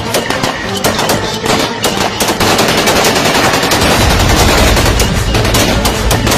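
Rapid, sustained gunfire: many shots a second in a continuous fusillade, with a heavier low rumble joining about two-thirds of the way in.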